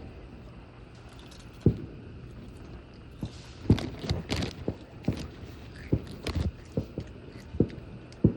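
Fireworks banging, about ten irregular low thumps with some sharper cracks, bunched together about four seconds in.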